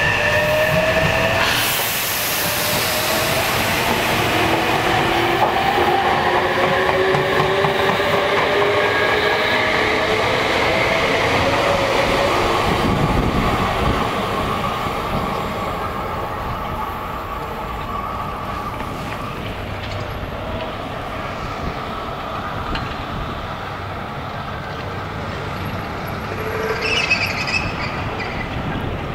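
Meitetsu electric train pulling away, its traction motors whining in several tones that rise in pitch as it speeds up. The train noise dies down after about halfway, and a brief sharper sound comes near the end.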